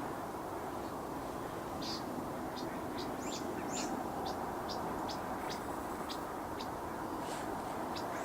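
Short, high bird chirps, about a dozen at irregular spacing from about two seconds in, over a steady background rumble.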